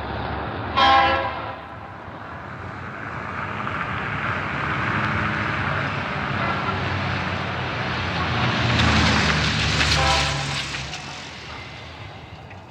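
Street traffic sound effect: a car horn honks about a second in, then traffic noise swells as vehicles pass, and a second horn honks about ten seconds in.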